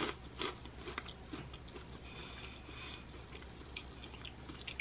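Crunchy breadstick being chewed with the mouth closed: soft, irregular crunches and clicks, a few stronger ones in the first second or so.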